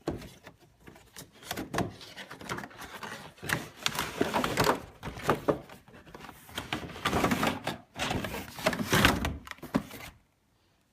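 A boxed doll set's packaging being opened by hand: irregular rustling and scraping with sharp clicks and knocks. It stops suddenly near the end.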